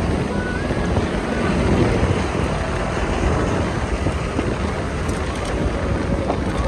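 Wind buffeting the microphone over the running engine and rumble of a jeep driving on a bumpy dirt track.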